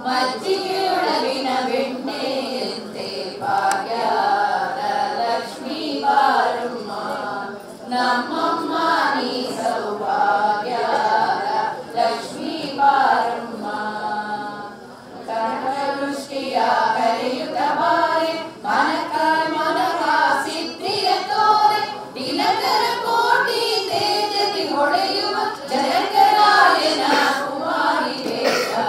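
A group of voices singing a devotional song together during a pooja, in phrases that rise and fall, with a short lull about halfway through.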